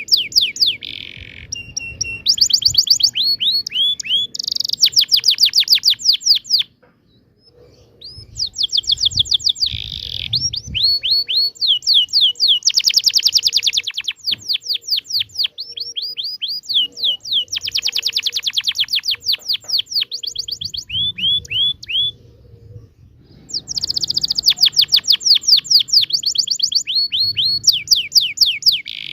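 Canary singing a long song of rapid rolling trills: phrases of fast repeated high notes, with two short breaks.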